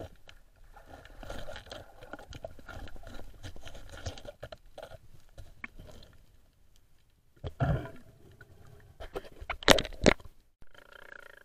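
Underwater crackling and scraping, many small clicks as a thin metal hook rod is worked against the rock inside a reef crevice. Later come two loud, short rushing sounds, a little under and a little over two seconds apart.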